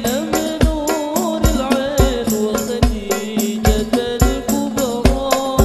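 Hadroh sholawat performance: a male lead voice sings a melismatic devotional melody through a PA over a steady beat of hand-struck frame drums, with deep bass-drum strokes and sharp high rebana slaps.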